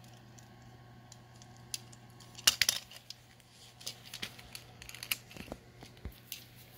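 Scattered small clicks and taps of a plastic toy figure being handled and turned, the loudest a sharp click about two and a half seconds in, over a faint steady hum.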